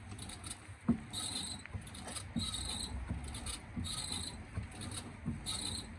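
The passenger-side wheel of a BMW 328i is spun by hand on the jack, with a scraping grind that comes round again and again, strongest about every second and a half. There is a single knock about a second in. The grind is a broken anti-roll bar drop link rubbing on the tyre and rim, which the mechanic thinks has spun round.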